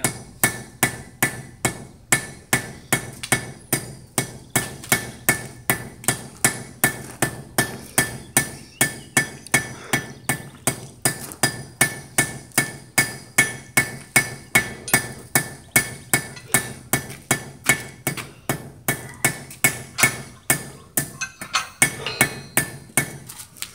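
Blacksmith's hammer striking metal on an anvil in a steady rhythm, about two to three blows a second, with the anvil ringing between blows.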